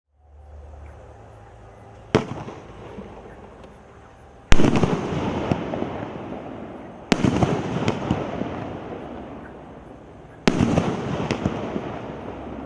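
A 36-shot, 2-inch firework cake firing: four sharp bangs, two to three seconds apart, each followed by a crackling tail that fades away.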